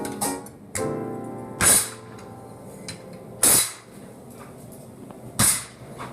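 Background music: a held piano-like chord, then three loud sharp strikes about two seconds apart.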